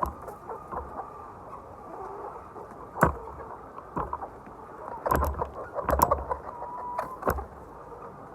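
Chickens clucking and calling, with several sharp knocks, the loudest about three seconds in and a cluster between about five and seven and a half seconds.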